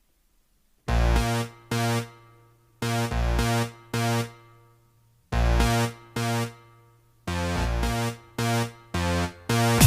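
Synthesizer pop intro: held electronic chords over a deep bass, played in short groups of two with silent gaps between them, the last group faster. A drum-machine beat kicks in at the very end.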